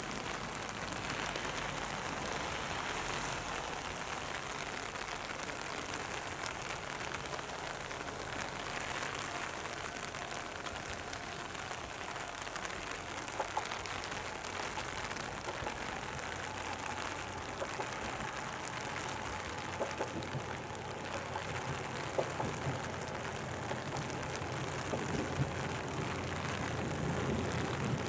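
Steady rain falling on a wet station platform and track. Over the last several seconds a KiHa 54 diesel railcar's low engine hum builds as it approaches.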